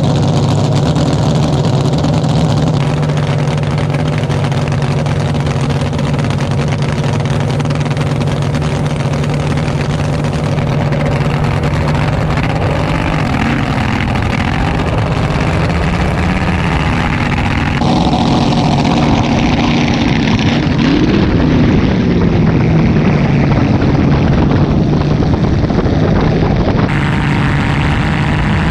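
Vehicle engine running with a steady, even drone, broken by several abrupt changes in the sound as the footage cuts between cameras; about three-quarters through, the pitch rises and falls briefly.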